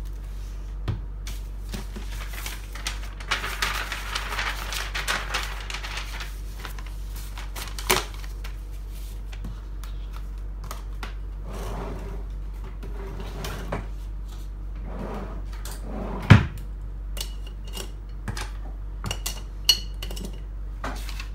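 Things being handled and set down on a desk: paper rustling, with scattered knocks and clicks, the loudest knock about two-thirds of the way through, over a steady low hum.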